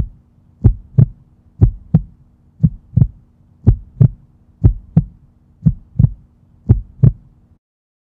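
Heartbeat: pairs of low lub-dub thumps about once a second, seven beats in all, cutting off suddenly near the end.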